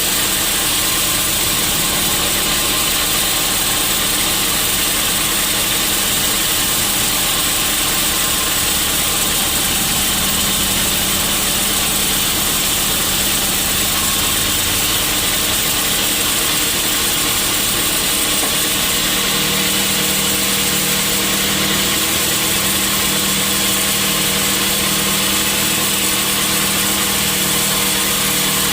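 Sawmill machinery running steadily, a loud, even mechanical noise with a low hum that grows stronger about two-thirds of the way through.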